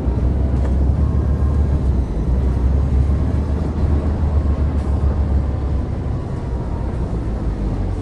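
Mercedes-Benz OC500LE CNG bus running, a heavy low rumble with a faint steady whine above it; the bus's fan bearing is bad.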